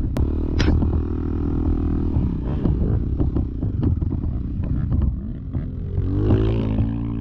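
Dirt bike engine running as it is ridden over a rough trail, with frequent clicks and knocks from the bike over the bumps. The engine note holds steady, then rises briefly near the end.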